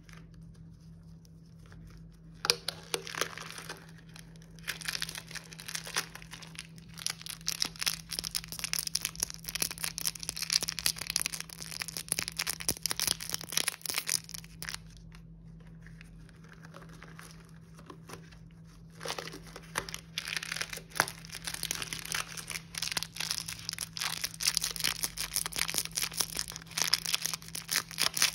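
Candy wrappers crinkling and tearing as hands twist and open them, in two long bouts: one starting about two seconds in, and another after a quieter stretch in the middle.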